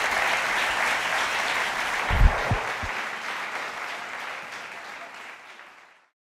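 Audience applauding, fading away to silence about six seconds in, with a couple of low thumps about two seconds in.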